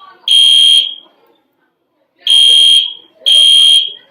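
Building fire alarm sounding the three-beep evacuation pattern: loud, high-pitched beeps of about half a second each, in groups of three with a pause of over a second between groups. One beep ends a group early on, then two beeps of the next group follow after the pause.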